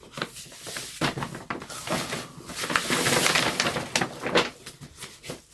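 Rustling and crackling of bag packaging being opened and handled by hand, irregular and loudest about halfway through.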